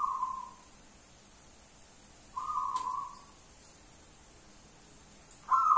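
Zebra dove (perkutut) cooing in its high, shrill 'menjerit' style: two short coos, then near the end a louder, rapidly pulsing coo begins.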